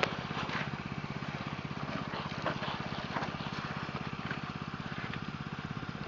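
Small engine driving the highbanker's water pump, running steadily with a fast, even putter.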